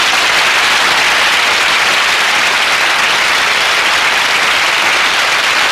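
Audience applauding steadily, a dense, even clapping after the song has ended.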